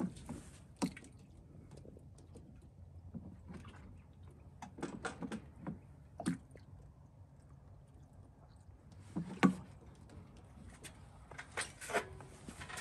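Irregular knocks, clicks and rattles from metal transport crates and a plastic watering can as the crates' water troughs are filled, with the loudest knock about two-thirds of the way through and a quick cluster of knocks near the end. A low steady hum runs underneath.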